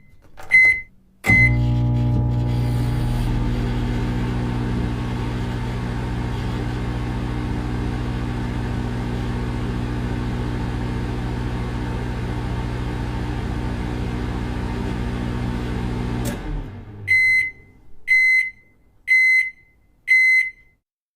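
Microwave oven: two keypad beeps, then it starts and runs with a steady electrical hum for about fifteen seconds. It stops with a click and gives four beeps, the end-of-cycle signal that the heating is done.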